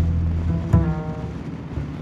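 Background music with a deep bass line of held notes that change pitch, and one plucked note ringing out about three-quarters of a second in.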